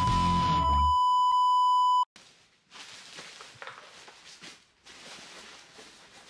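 A steady 1 kHz test-card beep that cuts off abruptly about two seconds in, with the tail of distorted electric-guitar music fading under it. Then faint rustling and handling noise.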